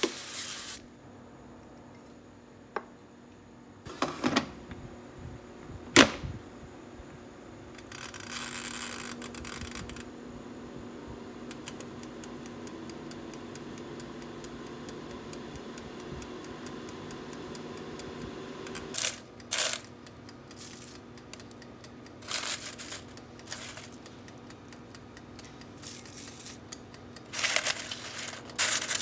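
Scattered sharp clicks and clatter of small hard objects being handled, over a steady low hum. The loudest click comes about six seconds in, and the clicks come thicker in the last ten seconds.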